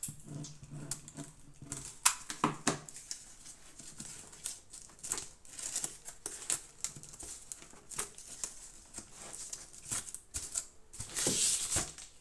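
Crumpled brown paper strips crinkling and rustling as they are handled and pressed onto a cardboard box, with irregular light clicks and taps; a longer, louder rustle near the end.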